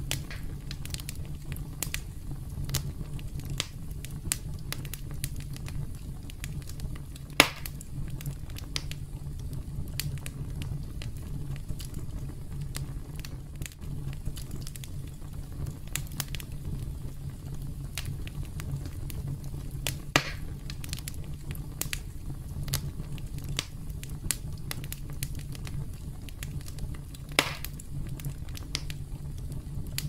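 Wood campfire crackling: a steady low rumble of burning under constant small snaps and pops, with three louder pops spread through.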